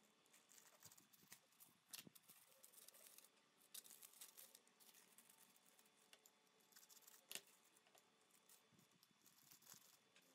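Faint rustling and crinkling of thin wrapper sheets being handled and cut with scissors, with a few sharp snips or clicks.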